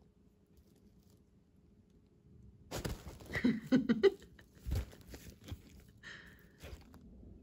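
Fabric cat tunnel rustling and crinkling as a kitten scrambles inside it and bats at a dangling pompom toy, starting about three seconds in, with a dull thump a little later.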